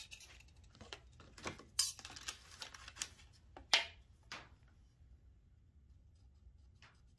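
Short scratchy strokes and light taps of marking on poster board, a handful of them over the first five seconds, then only faint room hum.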